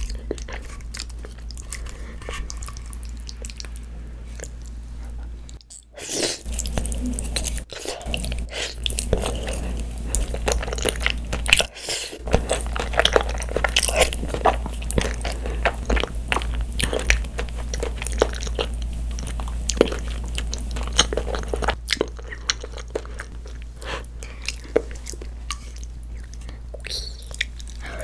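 Close-miked eating sounds: cream pasta noodles slurped up and chewed, with many small wet mouth clicks. Sparser for about the first six seconds, then busier, over a steady low hum.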